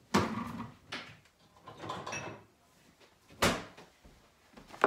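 Kitchen cupboard and drawer knocking open and shut while things are moved about inside them: a few separate knocks, the sharpest about three and a half seconds in.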